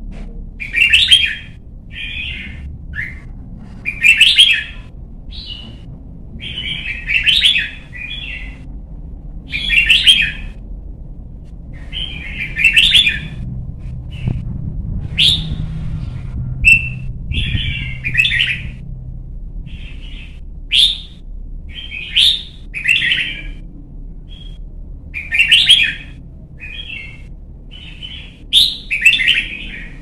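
Red-whiskered bulbul singing in short, loud song phrases of rapid warbled notes, one burst every second or two, over a faint low background rumble.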